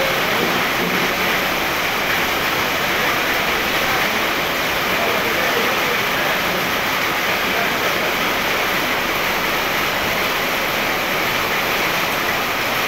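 Steady rushing background noise of a busy eatery, with faint voices mixed in.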